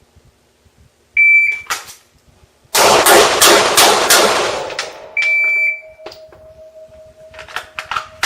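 A shot timer gives its start beep, then five gunshots fire in quick succession over about two seconds, and the timer's par-time beep sounds four seconds after the start beep. A faint steady hum and a few light clicks follow.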